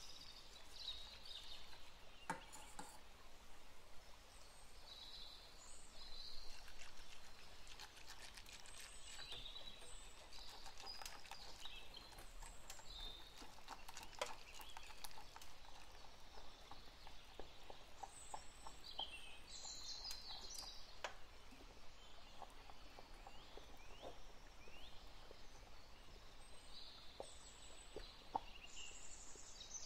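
Wire whisk stirring in a stainless-steel saucepan, its wires ticking faintly and irregularly against the pan. Faint bird chirps sound in the background now and then.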